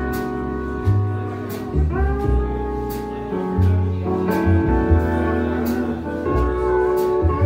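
Jazz combo playing: a pedal steel guitar holds sustained chords that slide into new pitches, over organ, upright bass and a drum kit with steady cymbal strokes.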